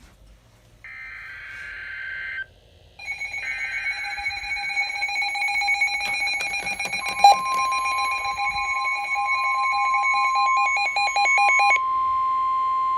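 Emergency Alert System alert tones: short screechy data bursts of the digital alert header, then a buzzy alarm tone from about three seconds in that pulses rapidly and cuts off near the end. About halfway through, a steady single-pitch tone joins it, typical of the NOAA Weather Radio warning alarm tone.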